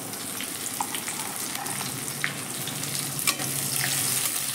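Chopped capsicum, green chillies and onion sizzling in hot oil in a kadhai, with a metal spatula stirring and scraping against the pan in scattered clicks.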